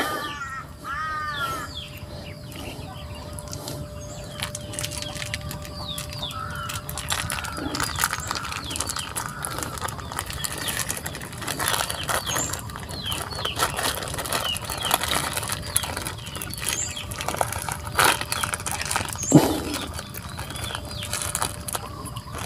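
Hands peeling sticky palm sugar out of its plastic wrapping over a steel bowl: plastic crinkling and rustling, with one louder knock near the end. A hen clucks a few times near the start.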